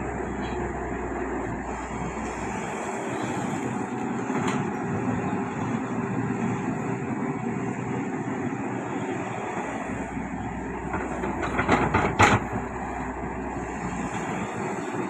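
Heavy diesel earthmoving machinery running steadily at work on dirt, with a short run of loud metal clanks about twelve seconds in.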